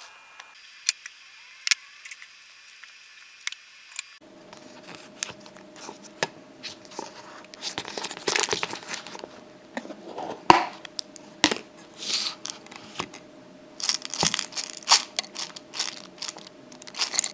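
A few sharp knife taps on a wooden cutting board, then a plastic packet crinkling and rustling as it is handled over a bowl. Clicks of a spoon against the bowl and a faint steady hum sit behind.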